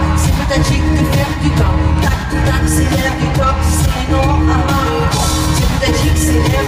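Live pop concert music from an arena stage, with heavy bass and singing.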